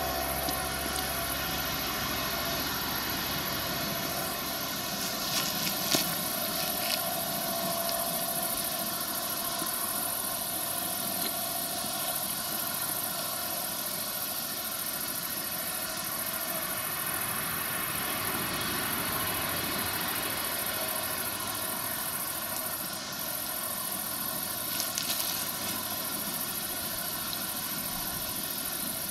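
John Deere combine harvester running steadily while cutting wheat, its engine and threshing machinery giving an even mechanical whine. A couple of brief clicks come about six seconds in and again near the end.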